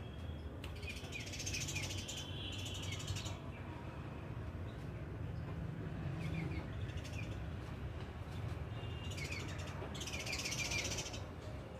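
Small birds twittering in two spells of rapid high chirps, starting about a second in and again about nine seconds in, each lasting two to three seconds, over a steady low background rumble.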